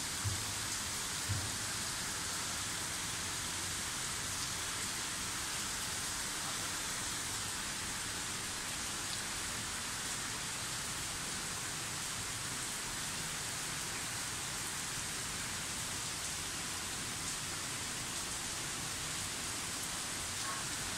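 Monsoon rain falling steadily, an even hiss throughout. Two short low thuds come in the first couple of seconds.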